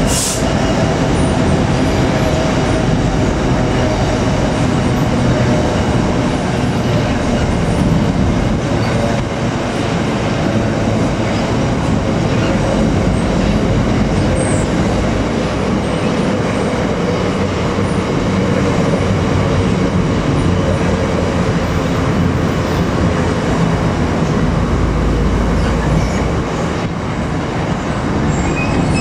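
Freight train of covered hopper wagons rolling steadily under the bridge: a continuous rumble of wagon wheels on the rails, hauled by a Class 66 diesel locomotive. A faint hum slowly falls in pitch over the first half.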